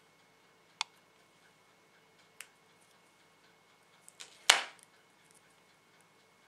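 Small scissors snipping a stiffened tissue-paper petal, two sharp snips about a second and a half apart, then a louder knock about four and a half seconds in as the scissors are set down on the table.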